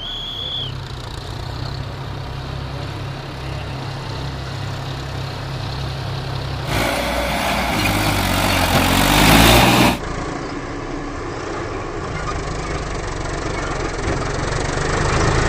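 Tractor diesel engines running steadily. In the middle, for about three seconds, an engine revs up with rising pitch and a loud rushing noise over it, then the sound cuts back to a steady run.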